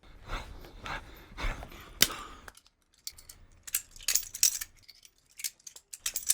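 Scuffling from a staged fight: rustling movement with a string of sharp clicks and knocks, the loudest a single sharp strike about two seconds in.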